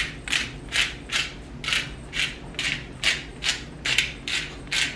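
Hand-twisted seasoning grinder grinding salt and pepper into a pot of sauce: a gritty rasp with each twist, about two or three twists a second.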